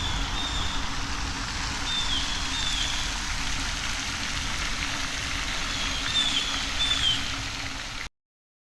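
Outdoor ambience: birds give short chirps a few times over a steady hiss with a low hum beneath it. The sound cuts off abruptly about eight seconds in.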